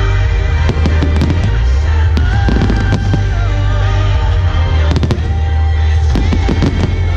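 Aerial firework shells bursting in quick succession: a run of sharp bangs, thickest about a second in and again from about five seconds in. Music with long held notes plays loudly under them.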